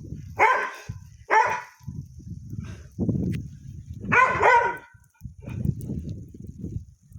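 A dog barking: two barks near the start and two more about four seconds in. Gusting wind buffets the microphone in between.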